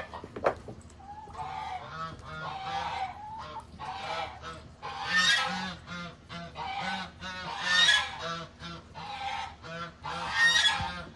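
Geese honking repeatedly, with the loudest rounds of honks about five, eight and ten and a half seconds in. A single sharp knock comes about half a second in.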